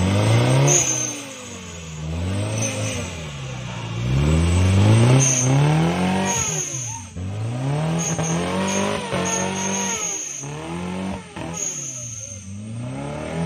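Off-road tubular buggy's engine revving hard in repeated bursts as it climbs a muddy slope under load: the pitch sweeps up and drops back again and again, roughly every second or two.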